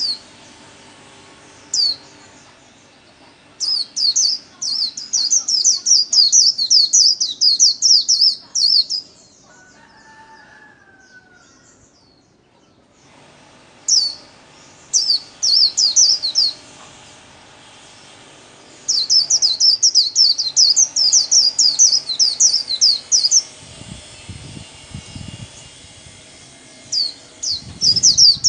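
A white-eye singing its fast, high twittering 'líu' song in bursts of several seconds, each a quick run of sharp down-slurred notes, with short pauses and a few single notes between. A few soft low thumps come near the end.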